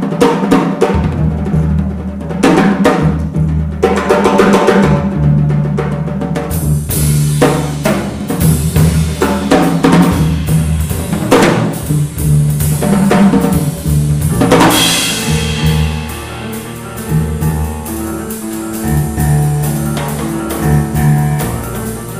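Live jazz piano trio playing: acoustic grand piano, plucked upright double bass and a busy drum kit. The cymbals thicken about six seconds in, with a strong cymbal crash about fifteen seconds in.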